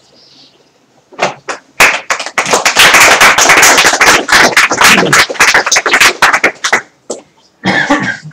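Audience applauding: a round of clapping that starts about a second in, builds quickly, and dies away after about six seconds.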